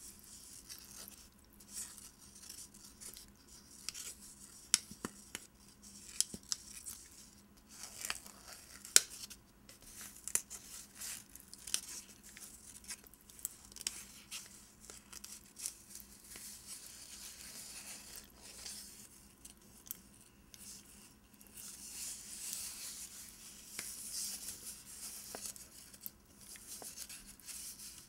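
Fingernails scratching and tracing over the paper wrapper of a bar of soap, in quick irregular strokes with sharp clicks and taps, and a longer run of continuous scratching about three quarters of the way through.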